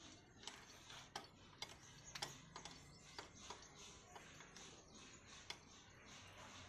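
Faint, irregular metallic clicks and taps from hands and tools working on the fittings of an old black diesel engine that is not yet running; the clearest click comes about two seconds in.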